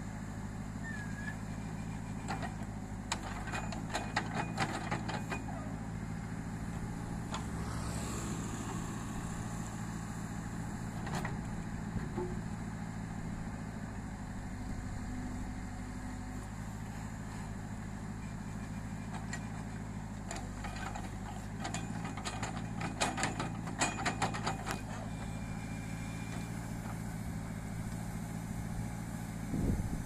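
Case backhoe loader's diesel engine running steadily under digging load, with bursts of knocking and rattling from the working backhoe about three to five seconds in and again after about twenty seconds.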